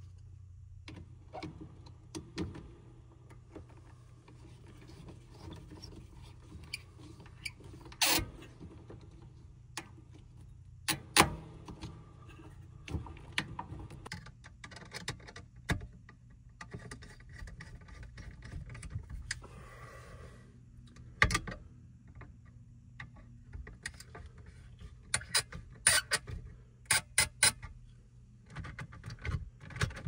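Hands and tools working wires into a metal electrical disconnect box: scattered clicks, taps and small rattles, with a quick run of sharp clicks near the end, over a steady low hum.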